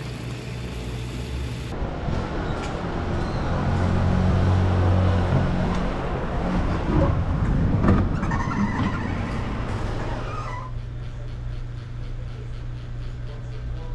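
City street traffic with a vehicle passing, loudest about four seconds in. About ten seconds in the traffic drops away, leaving a steady low hum of indoor room tone.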